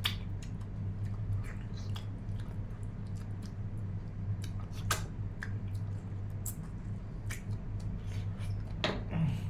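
Eating sounds: chewing with scattered sharp, wet clicks as mutton shoulder and rice are handled and eaten, over a steady low electrical hum.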